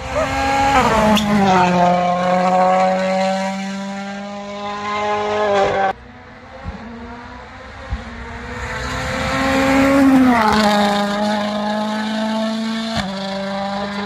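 Rally cars at speed on a tarmac stage, the engine note loud and falling sharply in pitch as each car goes by, then holding steady. The first cuts off abruptly about six seconds in; a second car swells up and falls in pitch about ten seconds in.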